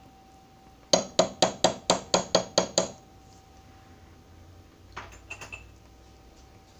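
A metal spoon rapped nine times against the rim of a skillet, about four sharp clinks a second, knocking off the cream of chicken soup, then a few lighter clinks about five seconds in.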